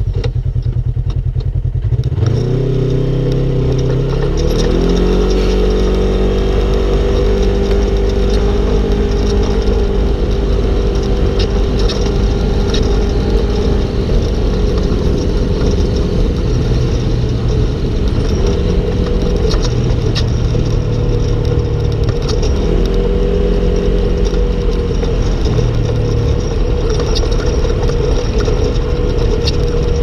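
Polaris RZR RS1's 999 cc twin-cylinder engine under way: it pulls away about two seconds in with its pitch climbing, then runs steadily, easing off briefly twice as the throttle is let up.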